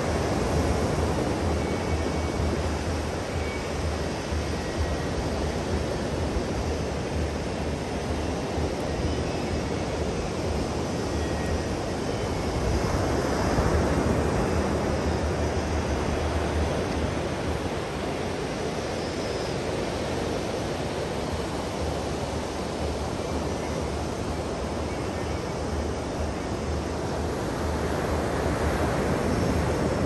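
Surf breaking on a sandy beach: a steady wash of waves that swells louder about halfway through and again near the end.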